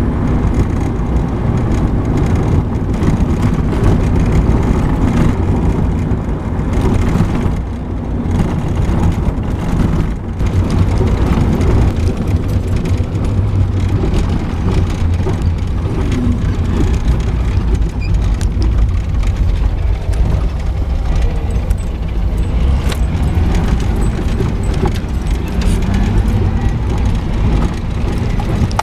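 Jeep 4x4 driving over a rough dirt trail, heard from inside the cab: a steady engine drone with rattles and knocks from the body over the bumps. The engine's pitch rises and falls a few times in the second half.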